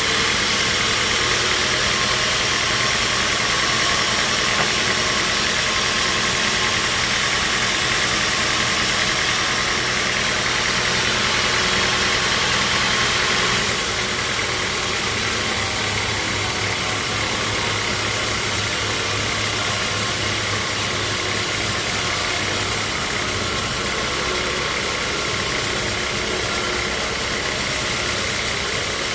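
Sawmill machinery running steadily: a dense mechanical drone with hiss. About halfway through the sound shifts and drops slightly in level.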